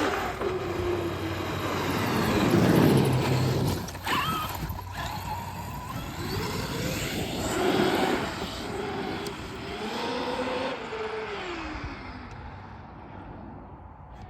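Traxxas XRT large-scale electric RC monster truck driving hard: its brushless motor and drivetrain whine rising and falling in pitch as it accelerates and slows, over tire noise. It is loudest about three seconds and eight seconds in, and fades toward the end.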